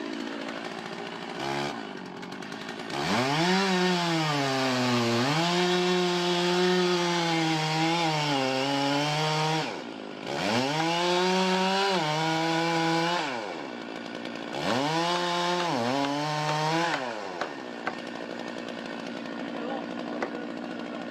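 Gasoline chainsaw revving up to full throttle three times for several seconds each, its pitch wavering while held, and dropping back to a lower running speed between the bursts.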